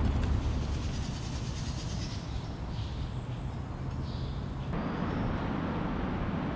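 Low, steady rumble of traffic crossing the bridge overhead, heard from beneath the span. The rumble grows fuller about two-thirds of the way in.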